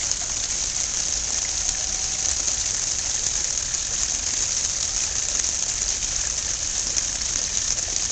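Small backyard garden waterfall splashing steadily into a pond, an even rushing of falling water.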